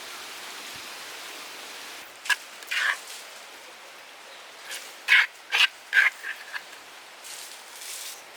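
A series of short animal calls over a steady hiss: two about two to three seconds in, then a quick run of five between five and seven seconds in.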